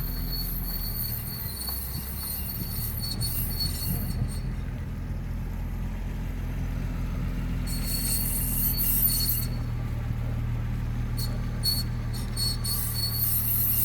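Audi A6 C4 with its engine humming low and a high-pitched whistling squeal that comes and goes in stretches of a few seconds. The owner says these squeaks appear only when turning, never when driving straight or braking, and does not know their cause.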